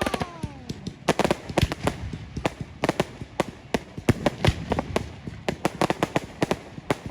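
Fireworks display going off: a rapid run of sharp bangs and crackles, several a second, coming in dense clusters. A falling tone fades out within the first second.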